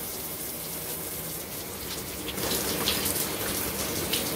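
Running tap water spraying and pattering onto a cockatiel held in a cupped hand, a steady hiss that grows louder a little over two seconds in.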